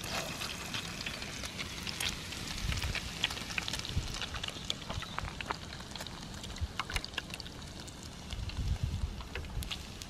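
Beaten eggs sizzling and crackling in hot fat in a pan on a campfire, starting as the egg is poured in and keeping up as more is added. A few low thumps come now and then.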